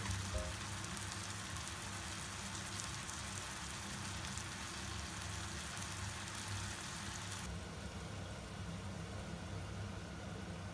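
Spicy pork stir-fry sizzling in a frying pan: a steady hiss over a low hum. The hiss turns a little softer about two-thirds of the way through.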